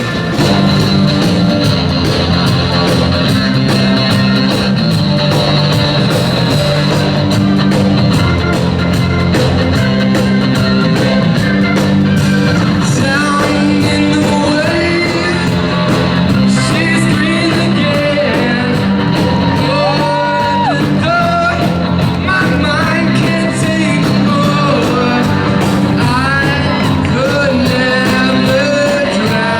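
Rock song with singing, loud and steady; the sung melody comes in clearly about halfway through.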